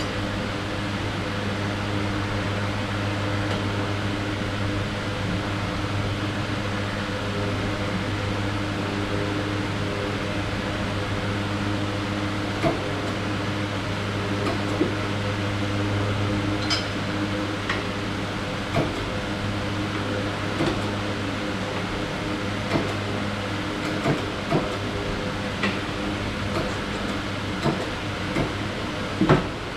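Steady mechanical hum of a running machine, with scattered light clicks and knocks that become more frequent in the second half.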